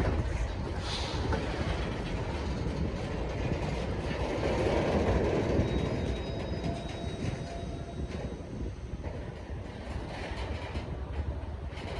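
Freight train cars rolling along the track, steel wheels rumbling and clacking over the rail, swelling a little about halfway through, with a faint thin wheel squeal soon after.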